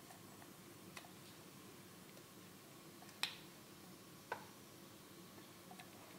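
A few light clicks of a spatula against an enamel bowl as cake batter is scraped out into a baking tin. They are quiet and spaced apart, the sharpest a little over three seconds in, another about a second later.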